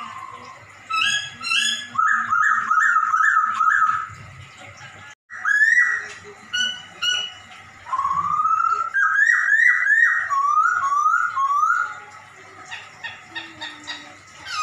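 A Poksay Hongkong laughingthrush singing loud whistled phrases: slurred rising notes and quick runs of repeated notes.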